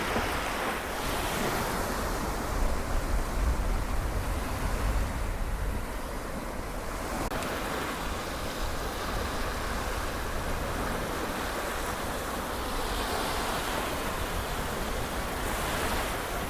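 Small waves of the Seto Inland Sea washing continuously onto the shore, with a low wind rumble on the microphone that is strongest in the first half.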